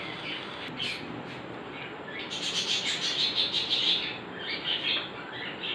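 Birds chirping, with a quick, busy run of high chirps in the middle and a few scattered chirps after it.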